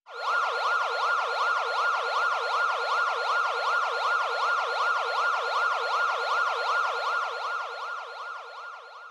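Emergency-vehicle siren in a fast yelp, its pitch sweeping up and down about three times a second, fading away near the end.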